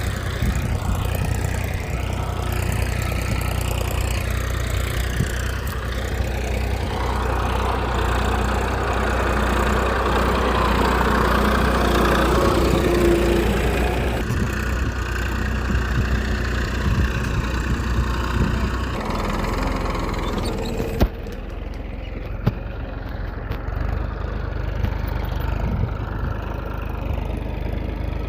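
A small engine or motor running steadily at idle, with a low, even drone; its sound changes abruptly several times, about 14, 19 and 21 seconds in.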